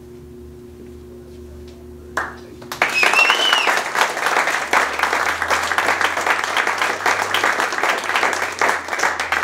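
Audience applauding, the clapping starting suddenly about three seconds in, with a brief high whistle near its start.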